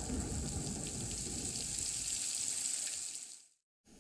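Steady hiss of falling rain with faint drop ticks, fading out about three and a half seconds in, followed by a moment of silence and then faint room tone.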